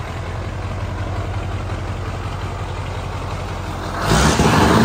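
Scania truck's diesel engine idling through a single vertical exhaust stack, then revved hard about four seconds in.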